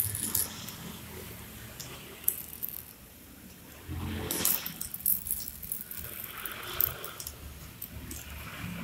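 Hand handling freshly laser-cut thin acrylic pieces on a laser bed's metal slats: scattered clicks and taps of plastic against metal, with rustling and crackling of the paper protective film. A busier patch of handling noise comes about four seconds in.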